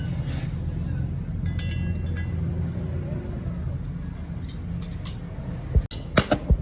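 A steady low machine hum, with several sharp metal knocks and clinks near the end.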